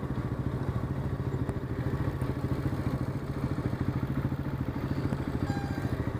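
Motorcycle engine running at low revs, a steady low throbbing beat with no change in pace.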